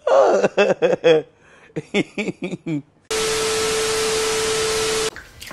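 A man laughing hard in short repeated bursts, then about two seconds of loud TV static: an even hiss with a steady tone through it that cuts off suddenly.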